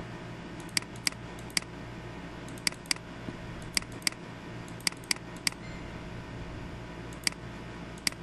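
Computer mouse button clicking about a dozen times at uneven intervals, some clicks in quick pairs, over a steady low electrical hum.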